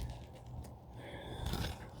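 A few light knocks and clicks of hand tools at work, over a low hum.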